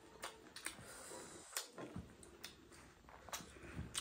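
Close-up eating sounds: fingers mixing biryani rice on a banana leaf, with scattered soft clicks and smacks of eating by hand.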